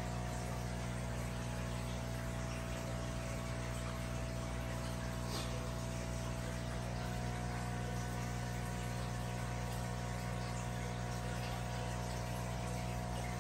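Aquarium pump running: a steady hum with several fixed tones over a faint hiss.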